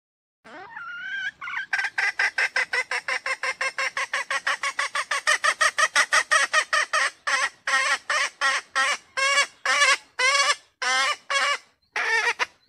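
Red junglefowl hen calling: a rising opening note, then a fast run of short, sharp notes at about six a second that slows and spaces out toward the end before stopping.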